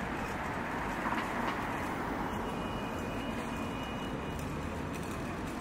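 Steady low rumble of city background noise, with a faint thin high whine coming in about two seconds in.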